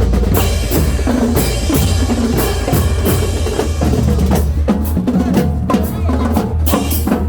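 Percussion-heavy festival music: bass drum and snare drums beating at a quick, steady pace, over a loud low rumble.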